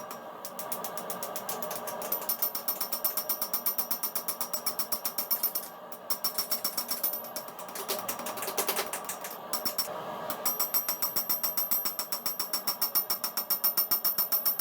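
Power hammer pounding steel in fast, even blows, about seven a second, with a bright metallic ring, pausing briefly about six and ten seconds in.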